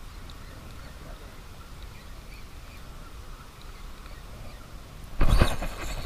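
Faint steady outdoor background on the water with a few scattered faint ticks, then about five seconds in a sudden loud rustle and bump as a sleeve and arm brush against the camera.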